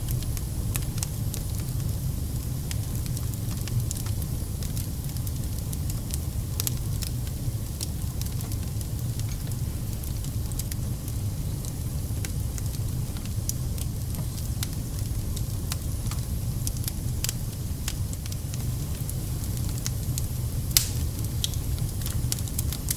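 Campfire burning, with wood crackling and popping in many irregular sharp snaps over a steady low rumble; one pop about 21 seconds in is louder than the rest.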